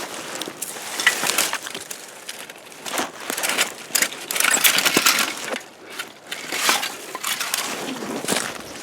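Crunching and rustling of brush and debris being pushed through and rummaged by hand, with scattered clicks and knocks of objects shifting against one another.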